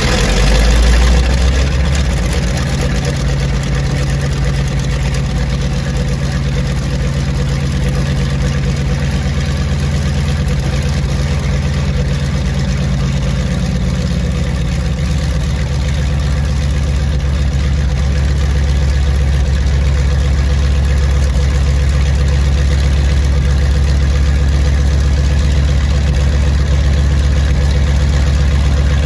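Pratt & Whitney R-1830 Twin Wasp radial engine of a C-53D Skytrooper running just after start-up, settling into a steady idle, its note shifting about halfway through.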